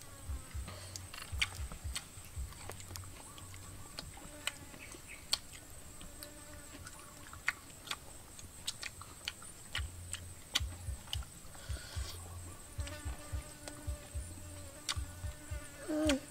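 Eating sounds: chewing and mouth smacks with scattered sharp crunchy clicks from crispy fried shrimp and pork ribs eaten by hand, over a steady high-pitched insect drone.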